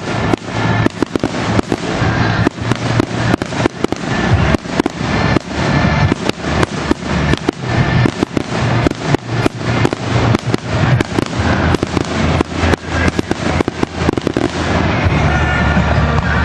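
Fireworks going off in a rapid string of sharp bangs and crackles, several a second, thinning out near the end.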